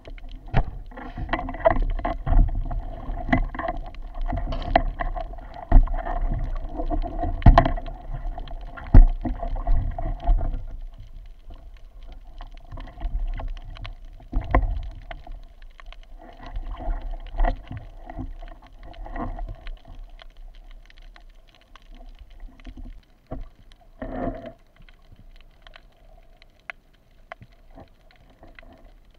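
Underwater sound picked up through an action camera's waterproof housing: muffled knocks and clatter from a speargun and a speared fish being handled, over a steady hum. The knocking is dense for the first ten seconds, then sparser, with a last short burst about 24 seconds in.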